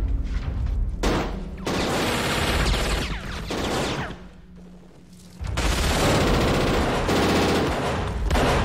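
Submachine guns firing long bursts of automatic fire in a movie shootout, with a short lull about four seconds in before the firing resumes.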